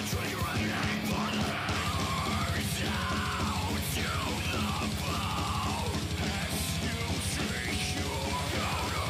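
Heavy metal background music with very fast drumming and yelled vocals.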